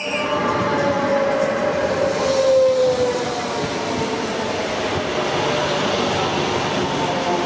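Renfe class 447 electric multiple unit passing at close range, with steady wheel and rail noise and a motor whine that falls slowly in pitch over the first few seconds.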